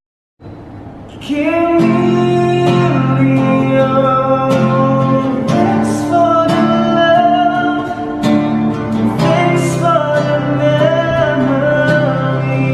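A song: a voice singing held, wavering notes over guitar, starting faintly and coming in fully about a second in.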